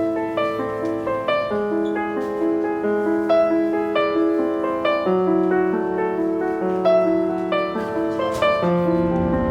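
Background music: a gentle piano piece, notes and chords played at an even, unhurried pace.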